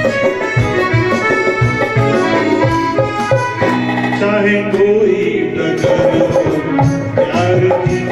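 Live band music from a Hindi film song: a keyboard melody with held, reedy notes over a steady hand-drum beat, with little or no singing.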